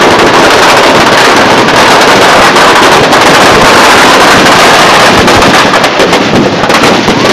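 Firecrackers packed inside a burning Ravana effigy going off in a very loud, dense, unbroken barrage of rapid bangs and crackles, easing slightly near the end.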